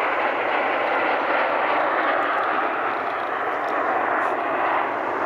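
Steady, even rush of aircraft engine noise.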